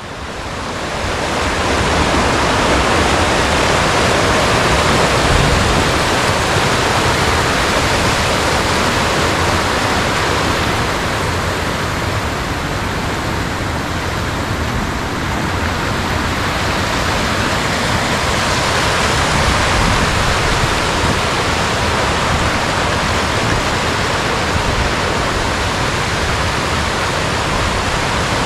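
Mountain stream rushing over rocks: a steady rush of water that fades in over the first couple of seconds.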